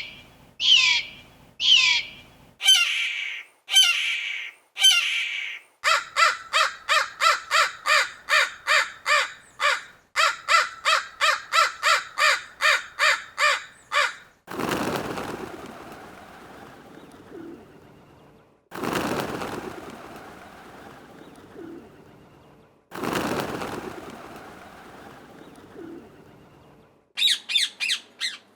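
A succession of different bird calls: first repeated falling calls about once a second, then a fast run of about three pitched calls a second, then three long, harsh, raspy calls a few seconds apart, and quick chirps near the end.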